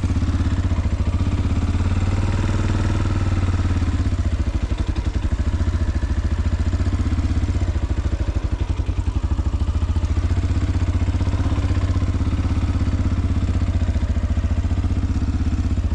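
Motorcycle engine running steadily at low revs, a fast, even pulsing of firing strokes.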